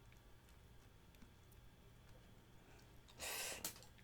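Near silence with a few faint clicks, then about three seconds in a single short, breathy puff of air from a person, followed by a click.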